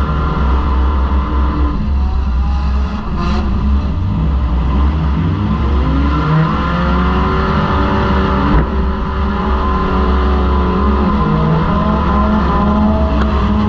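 Four-cylinder demolition derby car's engine running loud inside the car, its pitch rising and falling as it revs up and down. A few sharp knocks, the clearest about 8.5 seconds in.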